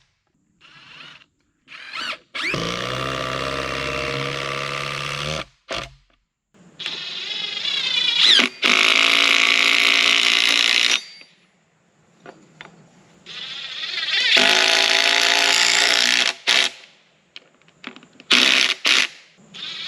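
A power drill running in several bursts of a few seconds each, its pitch rising as the motor spins up, each burst stopping abruptly.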